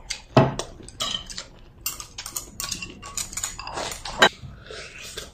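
Chopsticks clicking against ceramic bowls while eating, with someone slurping from a bowl, and one sharper clink about four seconds in.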